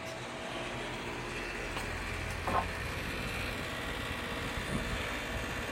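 Outdoor unit of a 1999 3-ton heat pump running in cooling mode: a steady hum of compressor and condenser fan, growing louder over the first second and then holding steady.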